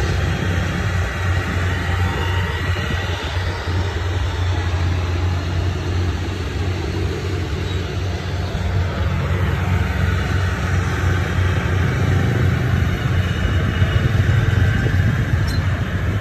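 Yanmar 82 rice combine harvester running steadily at work, its Yanmar 4TNV98 diesel engine and threshing machinery giving a constant low drone.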